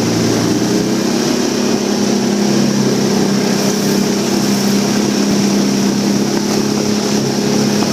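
Longtail mud motor on a mud boat running at a steady, loud pace, with a hiss of water and wind over it.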